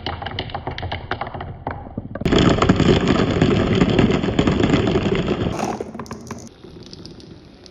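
Marbles rolling and clattering down a marble run: quick clicks at first, then a loud, dense rattling from about two seconds in that drops away after about five and a half seconds to a softer rolling.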